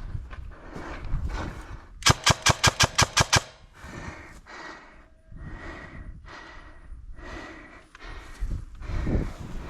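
An airsoft gun firing a fast string of about nine shots, starting about two seconds in and lasting just over a second.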